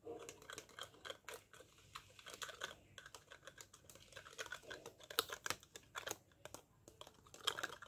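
A spoon stirring sugar into water in a clear plastic cup: a fast, irregular run of faint clicks and scrapes of the spoon against the plastic.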